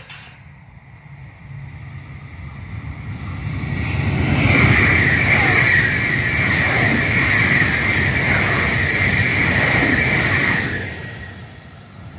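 AVE Siemens S103 (Velaro E) high-speed electric train, two units coupled, passing at speed. It rushes up steadily, runs loud for about six seconds with a high steady whistling tone over the noise as the long train goes by, then quickly fades away.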